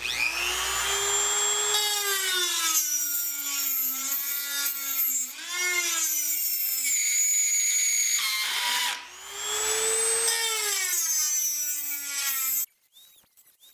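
Handheld rotary tool with a small carbide bit grinding into high-carbon steel plate. It spins up to a high whine whose pitch sags and wavers as the bit bites into the steel. It slows and drops out briefly about two-thirds of the way through, spins up again, and stops abruptly shortly before the end.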